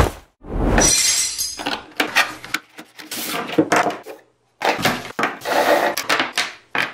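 A quick run of short rustles, swishes and small clattering knocks as the cardboard box and packaging of a Lupine Piko R bike light are flipped open and the light's parts are set down on a wooden table.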